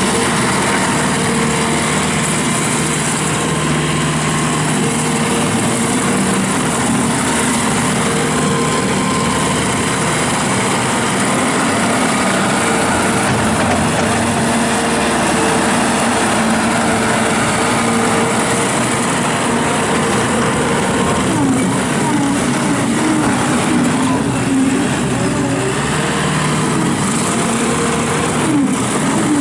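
2016 JCB 260T Eco rubber-track skid steer loader's diesel engine running steadily as the machine is worked, its pitch wavering up and down in the last third as the load and throttle change.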